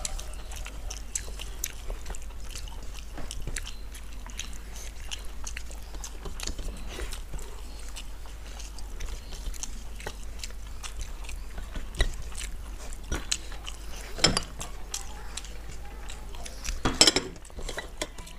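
Close-up eating sounds from people eating rice and curries by hand: chewing, with many small clicks and taps of fingers on steel plates. A few sharper knocks come later, and a louder burst of noise comes near the end.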